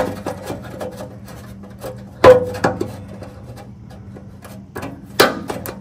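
Long-reach pliers clicking and scraping on the metal tab that holds an O2 sensor wire to a car's underbody: a few sharp clicks, the loudest about two seconds in and two more near the end, with light rubbing and ticking between, over a faint steady hum.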